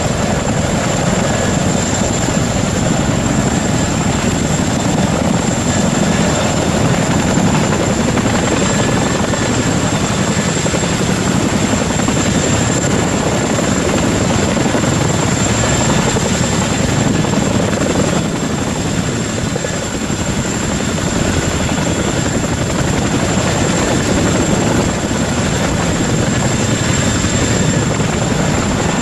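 Boeing CH-47 Chinook tandem-rotor helicopter running: steady, loud rotor and engine noise with a thin, high turbine whine held throughout.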